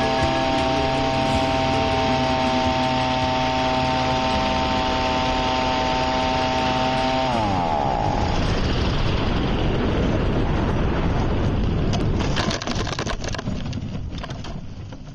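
Small engine of a powered hang glider harness running steadily, then winding down with a falling pitch and stopping about halfway through. Wind rush follows, then a cluster of knocks and rattles as the glider touches down near the end, and the sound fades out.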